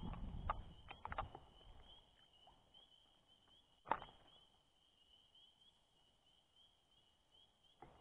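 Faint outdoor ambience: a steady high chirping, about three chirps a second, that stops shortly before the end. A few light clicks come in the first second or so, and one sharp click about four seconds in is the loudest sound.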